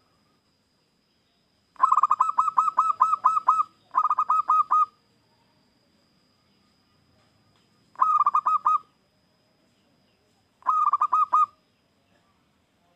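A zebra dove (perkutut) cooing in four bouts of rapid, evenly spaced staccato notes. The first bout lasts about two seconds and the other three under a second each.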